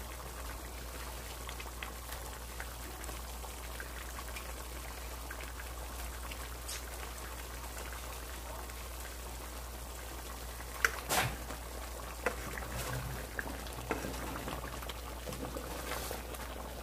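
Thick pepper sauce simmering in a pot, bubbling faintly over a steady low hum; a couple of sharp clicks about eleven seconds in, and a wooden spoon stirring the sauce near the end.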